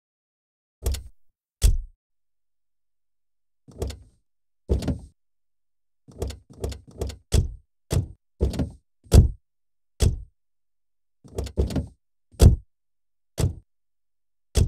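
A series of car doors being opened and shut: about eighteen separate latch clicks and heavy thunks of the door closing, some in quick pairs or clusters, with dead silence between them.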